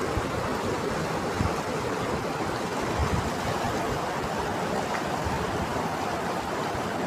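River water rushing steadily over rocks, an even, continuous rush.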